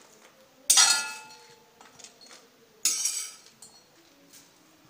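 Two sharp metallic clinks about two seconds apart, each ringing briefly: a steel ladle knocking against the iron kadai and steel plate while the roasted chillies and garlic are transferred.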